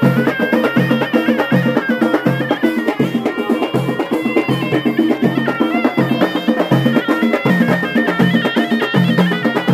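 Amazigh ghaita (shawm) playing a stepping melody over a double-headed tbel drum and hand frame drums beating a steady rhythm.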